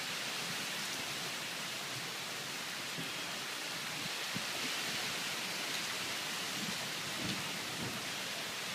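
Cyclone wind and rain: a steady, even hiss of rain and wind-blown foliage, with a few faint knocks.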